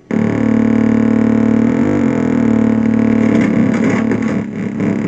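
Moog modular synthesizer oscillators sounding a steady drone of several tones mixed together. The drone cuts out for an instant at the start, swoops briefly in pitch about two seconds in, and from about three seconds in turns into a fast, rough warble.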